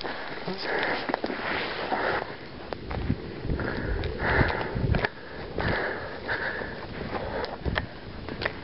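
A person breathing hard close to the microphone, long breaths in and out about every second and a half, with scattered low thuds and clicks.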